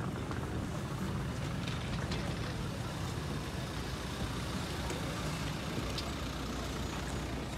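Steady low rumble of open-air ambience at a busy car boot sale, with a faint murmur of voices and a few light clicks.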